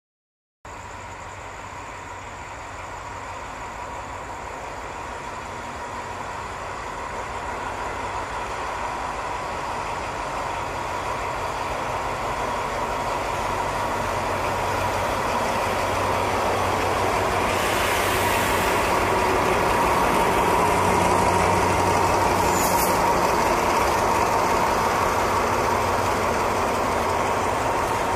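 Alsthom diesel-electric locomotive hauling a freight train, approaching and passing: its engine grows steadily louder for about twenty seconds, then the tank wagons roll by. A steady high tone runs throughout, and there is a brief burst of hiss about two-thirds of the way through.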